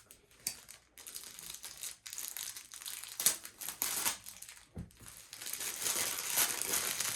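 Packaging crinkling and rustling in irregular bouts as it is handled and pulled open, with a sharper click about three seconds in.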